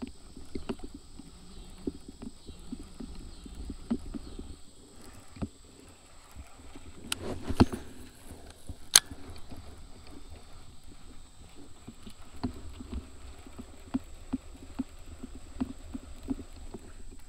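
Handling sounds of a baitcasting rod and reel in a kayak: a cast in the middle with two sharp clicks, then the reel being cranked back with soft, evenly spaced ticks near the end.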